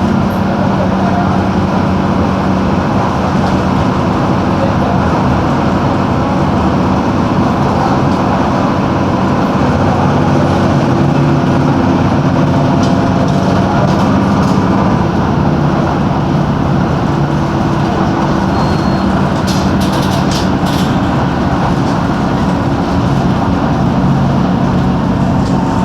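Mercedes-Benz OF-1721 bus's OM-366LA turbocharged six-cylinder diesel running with a steady drone whose pitch shifts as the engine speed changes. A few short clicks or rattles come about twenty seconds in.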